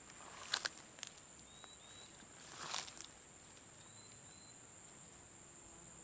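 A steady high-pitched insect drone, with a few rustling steps in dry undergrowth, the loudest about half a second and two and a half seconds in. Two pairs of faint short high chirps come about 1.5 and 4 seconds in: the strange call from the bush that the uploader believes may be a snake.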